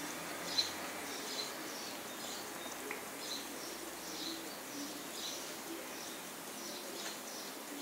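Short, high-pitched chirping calls from a small animal, repeating about once a second over a faint steady hiss.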